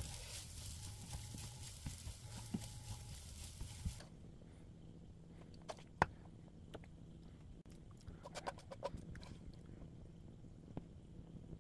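Silicone spatula stirring and scraping fried rice in a nonstick frying pan, with a steady frying hiss. After about four seconds this drops away to scattered knocks and taps of the spatula as rice is scooped into a small ceramic bowl and pressed down, the sharpest knock about six seconds in.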